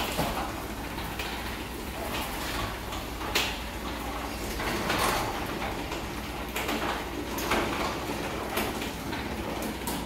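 Chain-drive garage door opener running and raising a new CHI model 2250 steel sectional garage door: a steady mechanical running noise with repeated knocks and clacks, roughly once a second, as the door travels up its tracks.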